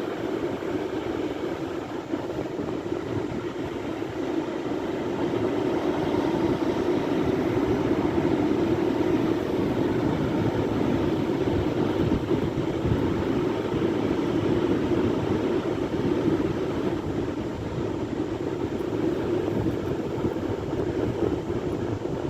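Sea waves: a continuous roar of surf, growing a little louder about six seconds in.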